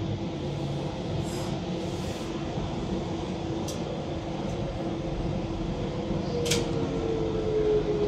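Docklands Light Railway train running slowly into its terminus platform, heard from inside: a steady rumble and hum, with a motor whine that falls in pitch over the last two seconds as the train slows. Two sharp clicks come through the middle of it.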